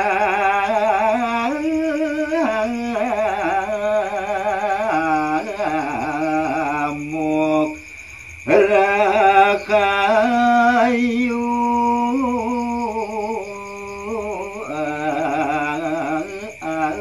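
A man singing Balinese gaguritan verse in a pupuh (macapat) melody, drawing out long, wavering ornamented notes. The voice breaks off for a moment about eight seconds in, then comes back in.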